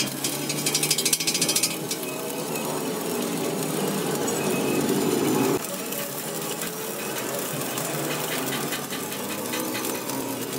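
Stick (shielded metal arc) welding: the arc crackles and sizzles as a bead is run around the centre disc inside a steel wheel rim. A louder low hum runs under it for a few seconds and cuts off suddenly about halfway through.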